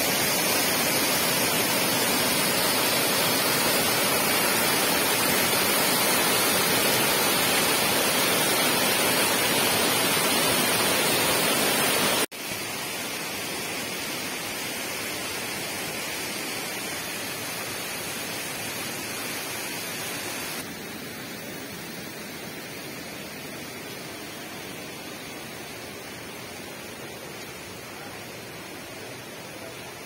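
Waterfall rushing steadily as a cascade pours into a rock pool. About twelve seconds in the rush cuts to a quieter, more distant sound of the falls, and it drops again about eight seconds later.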